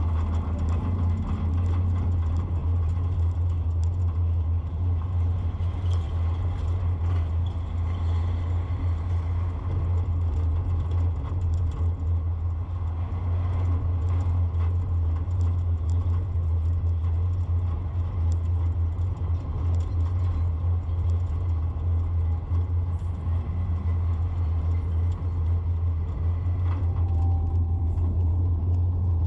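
Steady low drone of a vehicle engine with road noise, held at an even pitch and level throughout, with faint scattered clicks and rattles above it.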